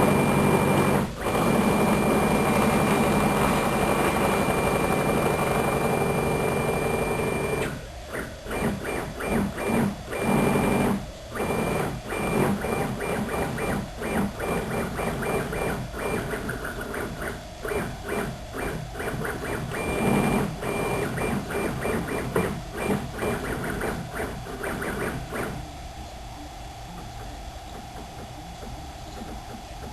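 CNC machine's stepper motors whining as they drive the axis, first in one long steady run, then in many short stop-start moves about eight seconds in, quieter near the end.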